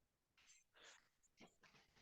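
Near silence: room tone with a few very faint, brief rustles.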